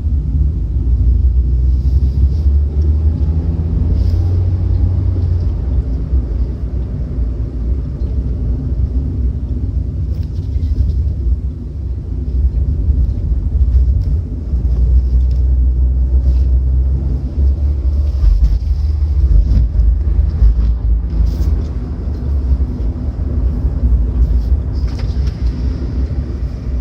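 Car making a loud, continuous low rumble that swells and eases a little: the abnormal noise the owner reports from the car's left rear.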